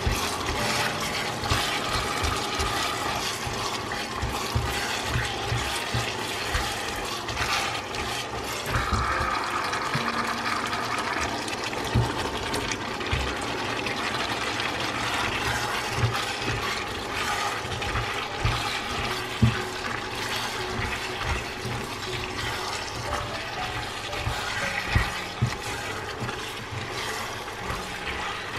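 Chicken, onions and diced red peppers sizzling in a non-stick wok while a spatula stirs them, with frequent knocks and scrapes of the spatula against the pan.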